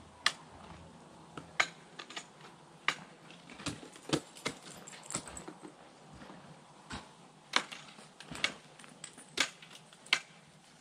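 Ice axe picks and crampon points striking waterfall ice: a dozen or so irregular sharp knocks and clicks as the climber swings the tools and kicks in.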